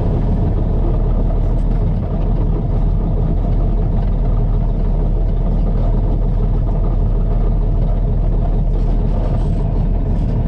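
Truck's diesel engine running steadily at low speed, heard from inside the cab, with a constant low rumble and road noise.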